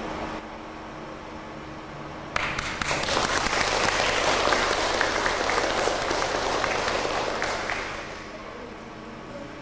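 Audience applauding: the clapping breaks out suddenly a couple of seconds in, holds for about five seconds, then dies away.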